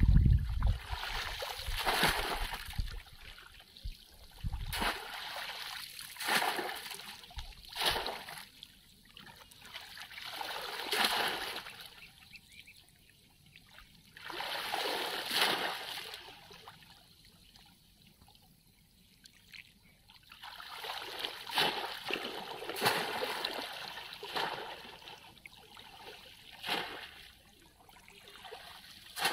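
Shallow water splashing and sloshing as hands grope and a body wades through it, in irregular swells with a few quieter lulls.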